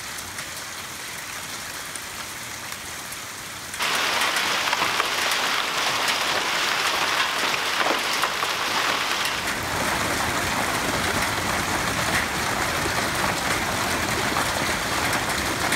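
Hail storm: hailstones and heavy rain pelting down in a steady dense hiss, with scattered sharp ticks of hail striking. It gets much louder about four seconds in and changes character again near the ten-second mark.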